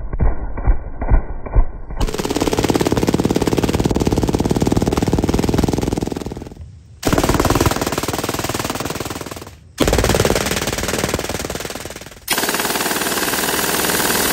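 MG-42 machine gun (7.92 mm Mauser) firing long full-auto bursts at about 1,500 rounds a minute, the shots so fast they run together into one continuous sound. Four bursts in a row, each cutting in abruptly, the first about four seconds long. It opens with a few muffled, slowed-down thumps of bullets striking water-filled buckets.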